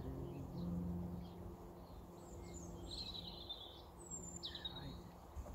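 Outdoor ambience with birds chirping, including a short trill about three seconds in, over a steady low hum that fades out partway through.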